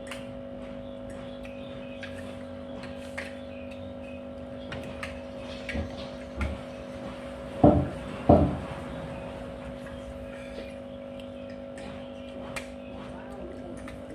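Fork and spoon clicking and scraping on a plate during a meal, over a steady hum. Two short, louder sounds come close together about eight seconds in.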